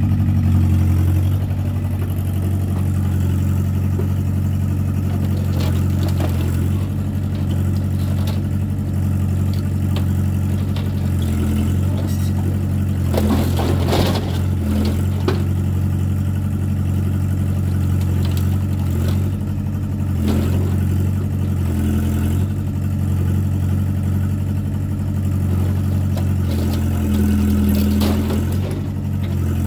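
Compact excavator's diesel engine running steadily under hydraulic load, its pitch shifting a little as the boom and bucket work. The bucket scrapes and knocks against burnt debris, with a cluster of clanks about halfway through.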